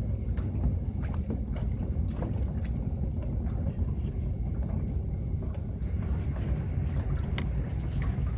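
Steady low rumble of a fishing boat on the water, with wind buffeting the microphone and a few light clicks.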